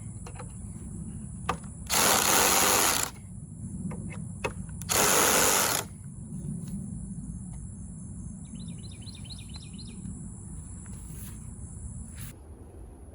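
Power drill running in two short bursts of about a second each, driving screws into wood, with a few light knocks in between. Birds chirp in short series in the background.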